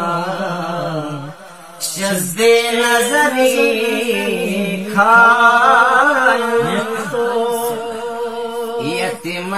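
Male voices singing a Balti qasida, a Shia devotional song, in long wavering held notes over a steady held low note. The singing drops away briefly about a second and a half in, then resumes.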